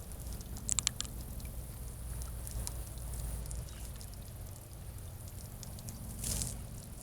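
Water dripping and splashing while a well water filter housing and cartridge are handled, over a steady low hum. A quick run of sharp clicks comes just under a second in, and a short hiss near the end.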